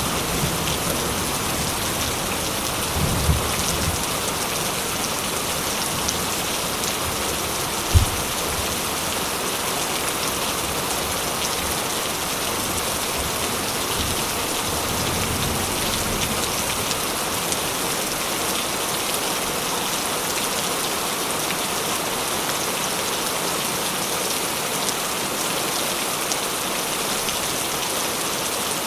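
Steady, even rain falling on a surface, with low thunder rumbles in the first few seconds and a single short low thump about eight seconds in.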